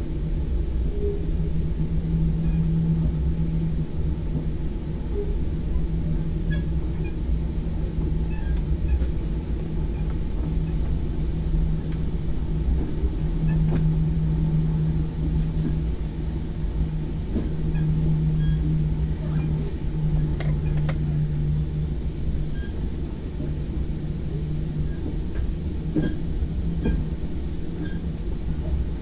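Virginia Railway Express bilevel commuter car in motion, heard from inside on the upper deck: a steady running rumble with a low hum that swells and fades several times, and a few faint clicks and rattles.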